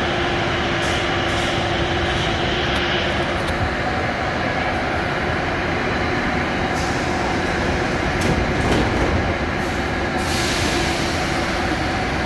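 Vintage Ezh3-type metro train standing at the platform, its equipment running with a steady hum and a faint steady tone that fades about four seconds in. A high hiss starts about ten seconds in.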